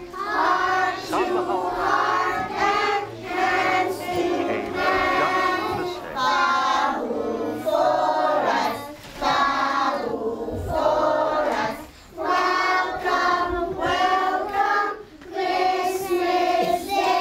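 A group of young children singing together in chorus, phrase after phrase with short breaks between them.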